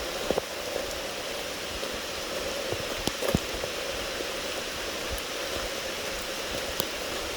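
Steady rain falling, with a few sharp taps.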